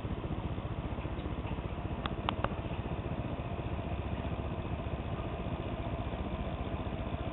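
Solar air heater's fan running steadily, blowing hot air, with a fast, even flutter. Two short clicks come about two seconds in.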